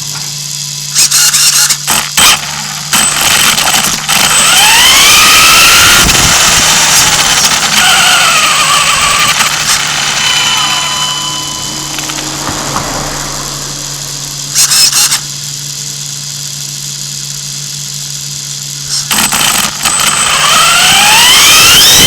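Electric motor and drivetrain of an Axial Exo Terra radio-controlled buggy whining, the pitch rising and falling with throttle and climbing steeply near the end. A steady low hum runs underneath until near the end, and there are several short, loud bursts of noise.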